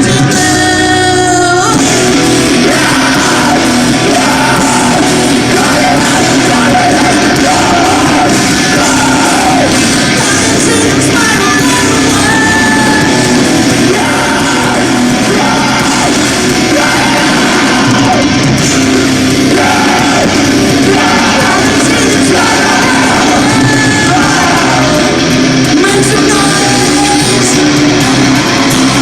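Post-hardcore band playing loudly live: distorted electric guitars, bass and drums under a lead vocal that is sung and at times shouted.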